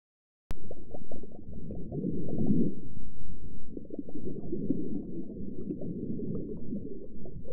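Muffled underwater ambience: a low, dull rushing with irregular bubbling and crackling, starting abruptly about half a second in.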